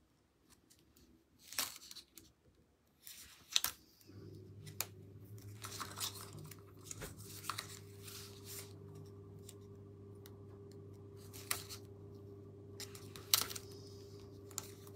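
Narrow double-sided tape being torn and its backing peeled off, then pressed onto card: a few short, sharp ripping and crackling sounds. A low steady hum comes in about four seconds in.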